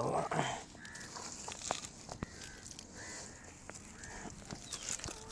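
A bird giving short, high chirping calls, repeated several times about a second apart, with a few faint clicks between them.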